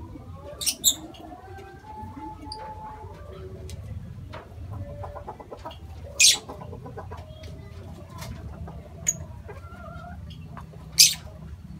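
A flock of lovebirds chattering and chirping while feeding, with loud, short, shrill screeches: two in quick succession about a second in, one at about six seconds and one near the end.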